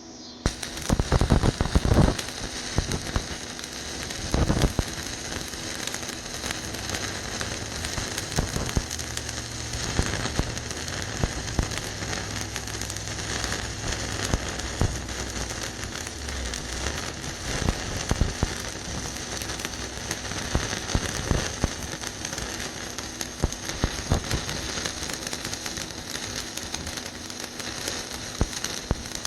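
Stick-welding arc from a 3/32" rod at 75 amps running a bead on rusted steel pipe, a steady dense crackle and sizzle. It strikes about half a second in with a few loud sharp cracks over the next second or so before settling.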